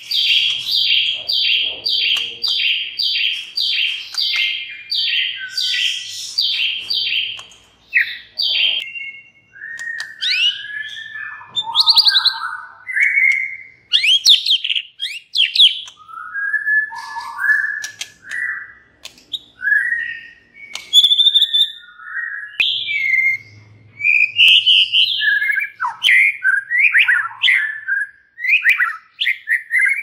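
White-rumped shama singing. For about the first nine seconds it gives a fast run of near-identical sharp notes, roughly two a second, then varied rich whistled phrases that slide up and down, broken by short pauses.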